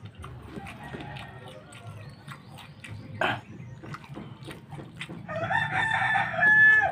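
A rooster crows once, a long call of nearly two seconds starting about five seconds in, ending on a held high note. Under it, soft clicks and smacks of eating rice and meat by hand.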